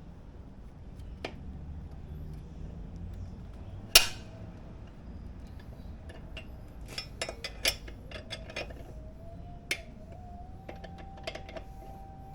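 Metal tools and parts clinking and clicking: one sharp clink about four seconds in, a quick run of clicks a few seconds later, and another single clink after that.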